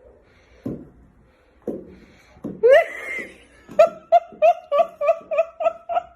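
High-pitched laughing: a few short breathy sounds, one drawn-out pitched note about halfway, then a quick run of about ten clipped "ha" pulses, about three a second.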